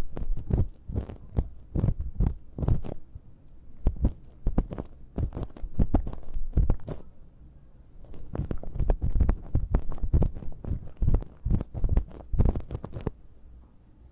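Close-up crackling, scraping and thumping of ear-cleaning tweezers working in an ear canal as a lump of earwax is loosened and pulled out. The sound comes in three bouts of dense, sharp crackles with short pauses between them.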